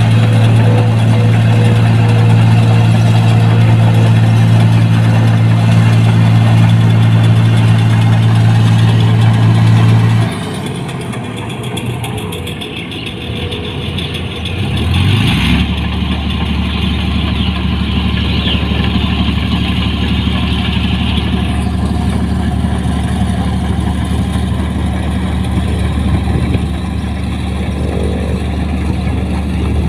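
Diesel engine of a New Holland 1545 tracked combine harvester running steadily under working load. About ten seconds in the sound drops suddenly to a lower level. Around fifteen seconds a brief rise in pitch leads into a steady, deeper hum.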